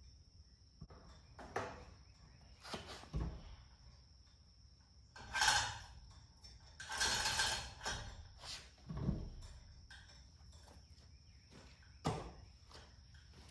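Scattered metal knocks and clunks, with two longer scraping rattles about five and seven seconds in, as the heavy front-end assembly of a Kubota M4050 tractor is shifted and lined up against the engine for bolting. A steady high cricket trill runs underneath.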